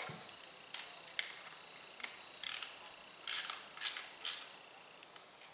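Small hand tool tightening a tiny mounting screw on a red dot sight mount: a few faint metal clicks, then four short scraping rasps as the screw is snugged up.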